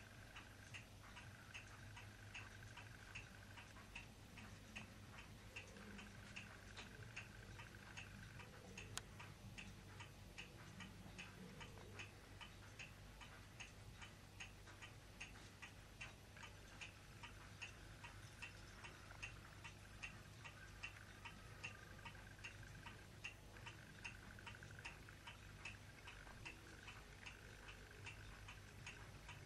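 Quiet room tone with steady, even ticking, about two ticks a second, over a low steady hum.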